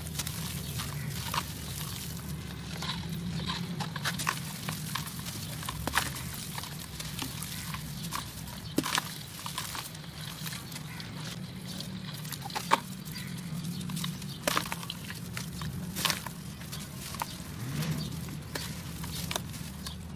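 Dry, crunchy clay chunks crushed and crumbled by hand into a steel basin: a running gritty crunching with many sharp crackles and clicks as pieces snap and fall onto the metal, over a low steady background drone.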